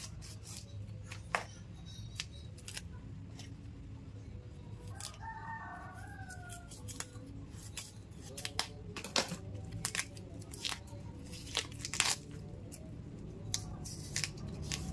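Kitchen knife peeling a large cassava root: repeated sharp scraping clicks and cracks as the thick peel is cut and torn away. A rooster crows once about five seconds in.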